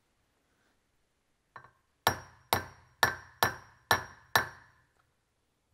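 Hand hammer knocking a spring pin into a gear pump's metal rear cover held in a vise: one light tap, then six sharp, ringing metal-on-metal blows about two a second.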